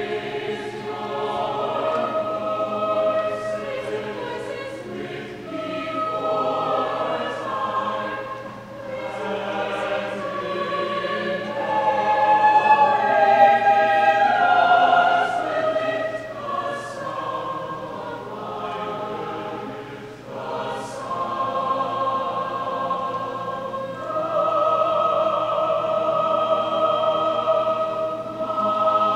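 A choir singing in long held chords, the voices growing loudest about halfway through.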